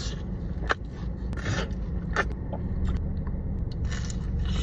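Close-up eating sounds: a few sharp crunching bites and scrapes, typical of tortilla chips being dipped in queso and bitten, over a steady low rumble.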